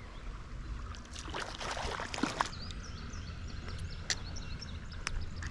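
Creek water splashing and sloshing in short irregular bursts as a hooked fallfish thrashes while it is played and landed, over a steady low rumble.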